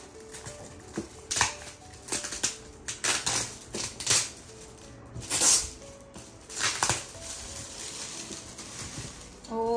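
Gift packaging being torn and rustled open by hand, in a string of short irregular crinkling rustles.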